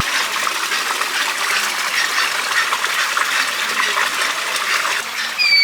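Steady rush of running or splashing water. Near the end comes a bird's short falling whistle.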